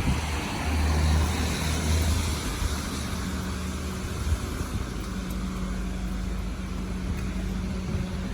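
A low, steady engine hum, strongest in the first few seconds, under an even rush of wind.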